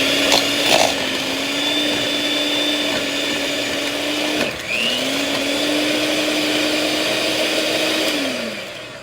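Electric kitchen mixer running steadily as it beats butter, sugar, egg and vanilla into a dough, stopping briefly about halfway through, starting up again with a rising whine, and winding down near the end.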